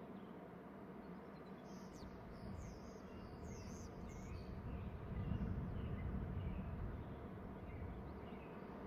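Bald eagle calling: a quick run of about six thin, high, falling notes over a couple of seconds, followed by fainter high calls. A low rumble swells near the middle.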